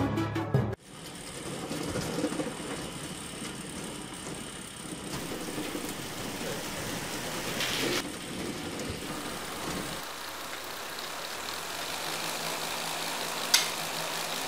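Small electric motor of a homemade cardboard flour mill running steadily, with a short sharp click near the end.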